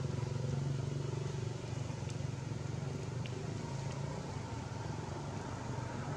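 A steady low engine hum, like a motor vehicle running nearby, with a couple of faint ticks about two and three seconds in.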